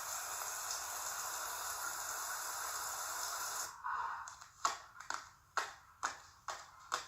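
A steady rushing noise like running water that cuts off suddenly a little over halfway through, followed by a series of sharp knocks, about two a second.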